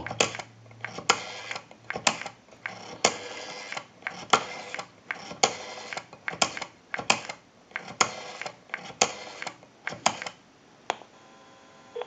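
Rotary dial of a Northern Electric desk telephone being wound and released digit after digit, each return sending a quick run of clicks as the number is pulse-dialed on an outside line.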